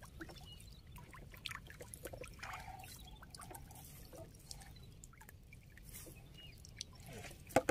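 Faint water trickling and dripping, with scattered small splashes and light taps, from a lifted anco lift net with fish in it.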